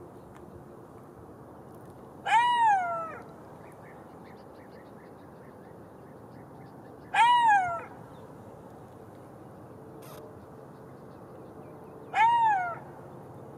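Golden jackal giving three short howling calls about five seconds apart, each one rising and then falling in pitch.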